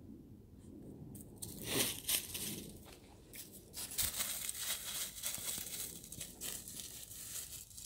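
Irregular crunching and rustling that starts about a second and a half in, louder and denser in the second half.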